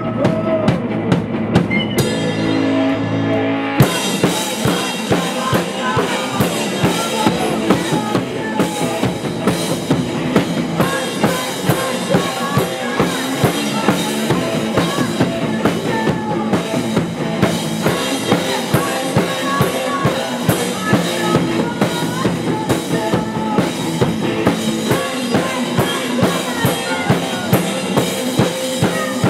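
Live band playing a rock song: a drum kit keeps a steady beat under electric guitar, with a singer's voice through the PA. About two seconds in, the drums and cymbals drop out for a moment and come crashing back in a couple of seconds later.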